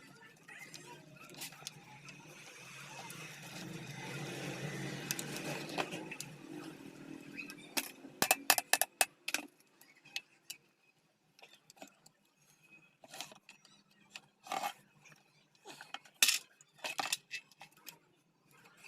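Scattered sharp metallic clicks and clinks of parts and tools being handled during a hand repair of an electric cutter machine, many of them from about eight seconds in, after a soft rustling swell in the first few seconds.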